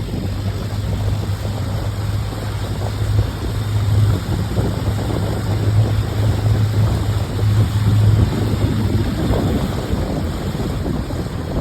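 Wind rushing over the microphone, with a steady low hum underneath that fades near the end.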